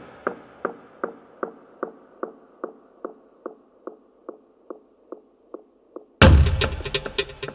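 House music track: a repeating click beat, about two and a half a second, fading away and getting duller like an echo tail, then the full beat drops back in with a loud bass hit about six seconds in.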